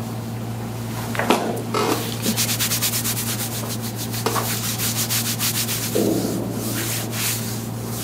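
Rapid, rhythmic rubbing during massage of the back, about six to eight strokes a second, over a steady low hum.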